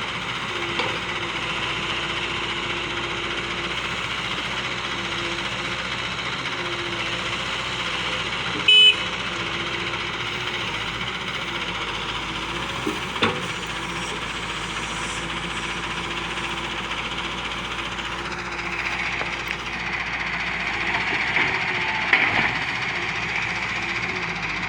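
Volvo EW145B wheeled excavator's diesel engine running steadily as it works, with a short high-pitched beep about nine seconds in and a sharp knock a few seconds later. The engine grows louder for a few seconds near the end.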